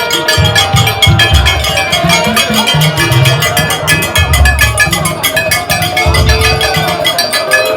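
Upbeat music with a driving drum and percussion beat and sustained melodic notes.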